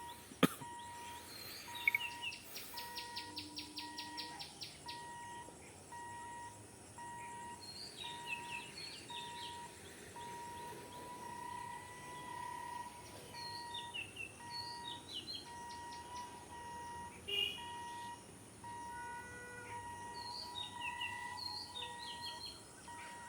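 Birds calling, a short chirping phrase repeated every six or seven seconds over quiet outdoor background, with a faint on-off tone running underneath and a single sharp click right at the start.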